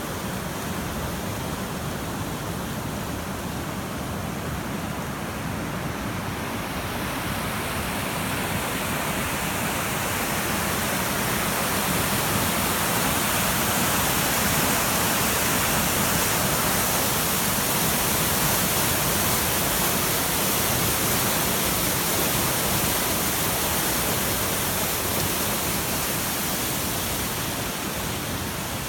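Steady rush of fast-flowing floodwater. It grows louder and brighter about a quarter of the way in, then eases slightly near the end.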